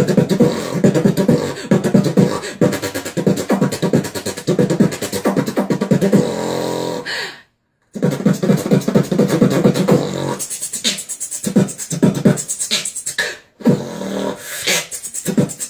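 Beatboxing: a fast rhythmic beat of mouth-made kick, snare and hi-hat sounds, breaking off into silence for a moment about halfway through and then picking up again.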